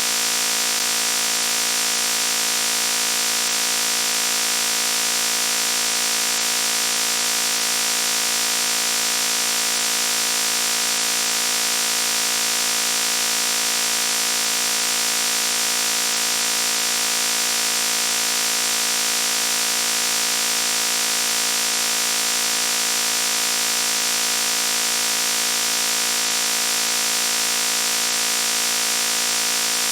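A loud, harsh buzzing noise held steady and unchanging, with a bright, high-pitched edge.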